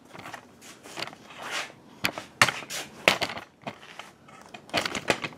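Irregular knocks and scuffs, about a dozen spread unevenly: footsteps and handling noise as a handheld camera is carried across a shop floor.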